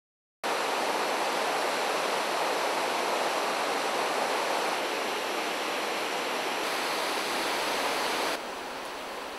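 Brief silence, then about half a second in, the steady rush of a fast-flowing, swollen river starts suddenly. It drops to a lower level near the end.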